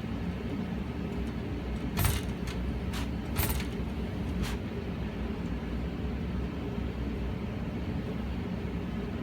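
New Goodman condensing gas furnace running with a steady low rumble, broken by five irregular bumps or knocks, two of them louder, about two to four and a half seconds in. These are the strange bumping noises, like someone kicking inside the furnace, which the owner links to debris in the flue drain.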